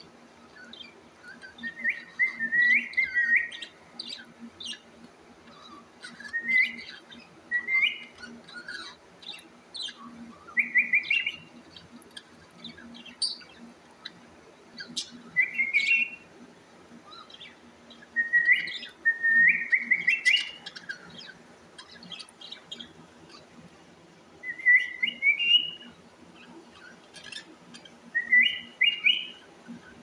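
Caged budgerigars and cockatiels chirping: short rising runs of chirps come every two to four seconds, with softer ticks and chatter in between.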